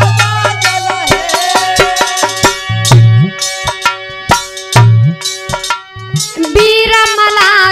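Instrumental break in a Hindi folk Holi song: hand drums play fast strokes with deep bass notes that slide up in pitch, over a held melody. A wavering melody line comes in near the end.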